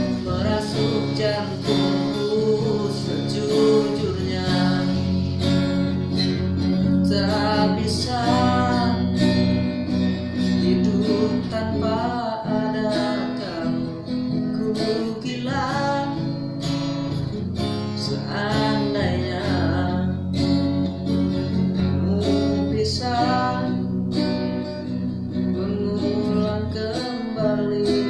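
Acoustic guitar strummed steadily while a man sings along in phrases.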